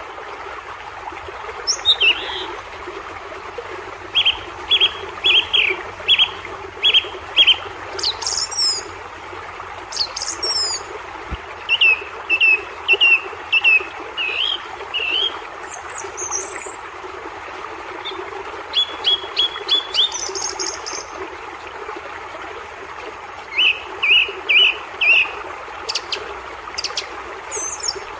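Songbirds singing: a repeated phrase of five to seven quick chirps every several seconds, with higher, sharper calls in between, over a steady outdoor background hiss.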